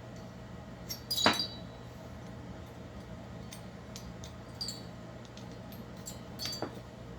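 Small metal tools and engine parts clinking on a workbench: one sharp clink with a brief ring about a second in, then a couple of lighter clinks later. A steady low hum runs underneath.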